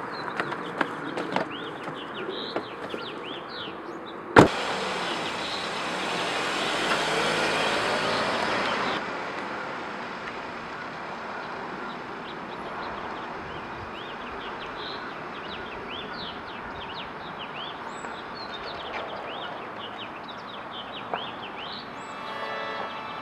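Birds chirping steadily over street ambience. A single sharp click about four seconds in, then a vehicle passing for a few seconds.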